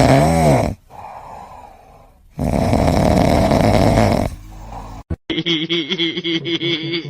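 A pet snoring loudly: two long snores of about two seconds each, with a quieter breath between them. The snoring stops abruptly about five seconds in, and a different, steadily pitched sound follows.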